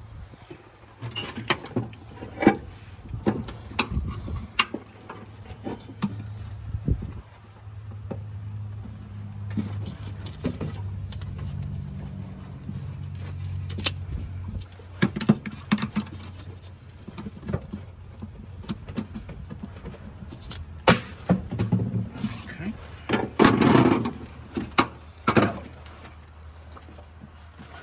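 Handling noise in a car's engine bay: scattered clicks, knocks and rubbing as a heater hose and wiring are moved by hand, with a denser burst of scraping near the end. A steady low hum runs underneath.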